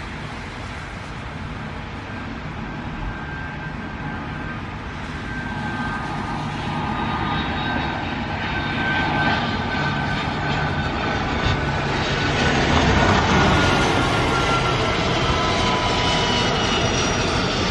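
Twin-engine business jet on final approach, gear down: the whine and rumble of its rear-mounted turbofans grow steadily louder as it comes closer. The sound peaks about twelve to fourteen seconds in, and the whine tones sink slightly in pitch as it passes.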